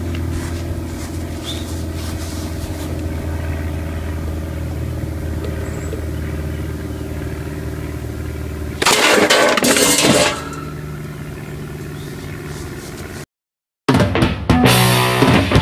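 A steady mechanical hum, then, about nine seconds in, a homemade PVC compressed-air cannon fires: a loud, sudden blast of escaping air lasting about a second and a half. After a brief dropout, loud rock music starts near the end.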